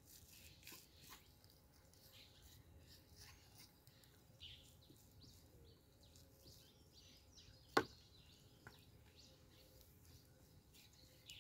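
Near silence with faint knife cutting and scraping as fat is trimmed off a raw beef rib slab, and a single sharp knock a little under eight seconds in.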